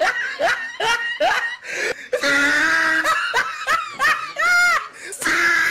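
A person laughing hard in rapid repeated bursts, with a long high-pitched squeal of laughter near the end.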